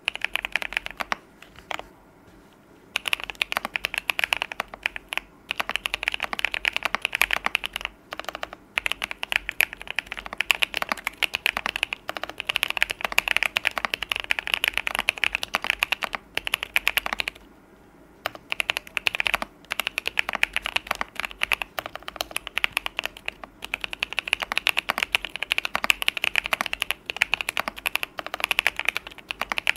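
Continuous fast typing on a KBDFans Vulcan X Majapahit mechanical keyboard, with a clear polycarbonate case and brass plate, fitted with lubed BobaU4T tactile switches, foam and PE and tape mods. Rapid keystroke clacks come in long runs, with brief pauses about two seconds in and just past the middle.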